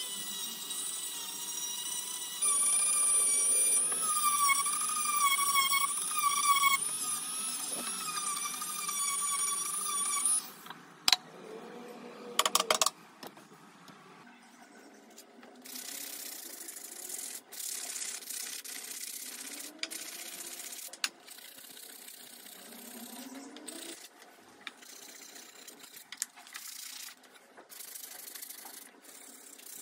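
A small electric rotary tool runs with a wavering whine under load, then stops about ten seconds in, followed by a few sharp clicks. After that, sandpaper is rubbed by hand over the teak handle of a walking stick in irregular strokes.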